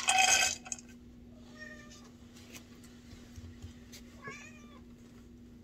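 Tabby cat meowing for food, two short calls about two and a half seconds apart, after a brief loud burst at the very start.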